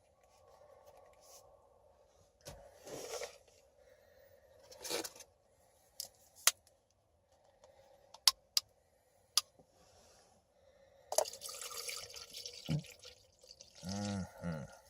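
Pre-workout being mixed by hand: a few short rustles and several sharp clicks and taps of a plastic scoop and container, then water pouring into the cup for a few seconds near the end.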